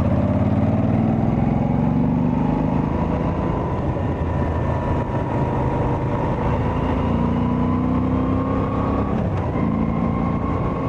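Moto Guzzi V85TT's air-cooled transverse V-twin under way, its pitch climbing slowly as it pulls up a grade, then dipping about nine seconds in, as at a gear change, and climbing again.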